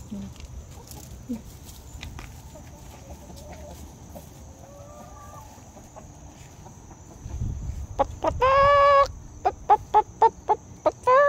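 Chickens clucking softly, then from about eight seconds in a loud cackle: one long drawn-out squawk, a quick run of about eight sharp clucks, and another long squawk near the end.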